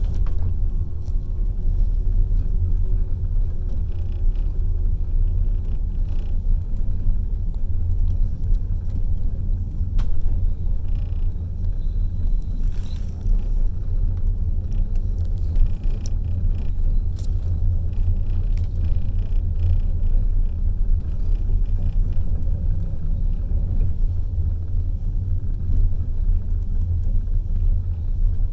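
Passenger train running: a steady low rumble of the carriage rolling on the rails, with a few faint clicks.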